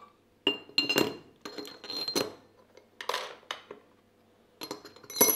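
Steel milling-machine spindle parts and bearing rings being handled: a series of separate metallic clinks and knocks with short ringing, the loudest near the end.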